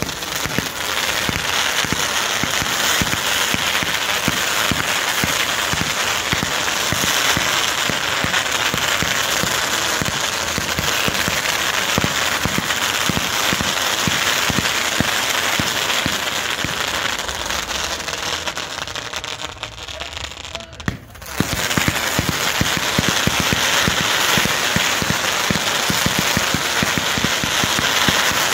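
Consumer fireworks cakes firing: a dense, continuous crackle of many small rapid reports. It dies away about two-thirds of the way through, then starts again suddenly and carries on.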